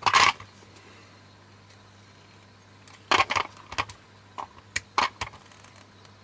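Pliers forcing the small metal frame of a projector's optical block, which is glued or soldered together. A short clatter of handling comes at the start, then, after a quiet stretch, a run of sharp metallic clicks and cracks from about three seconds in as the frame is bent and pried.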